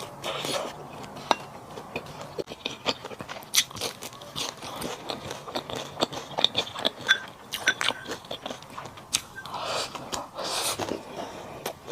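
Close-miked chewing and biting by a person eating, with many small wet smacks and clicks, and a couple of longer, noisier mouth sounds near the end.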